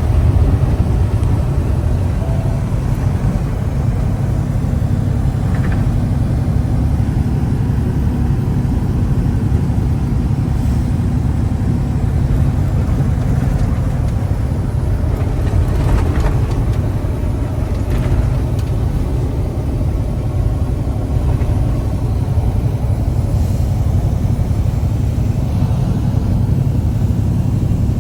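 Steady low engine and road drone heard from inside a vehicle cruising on the highway.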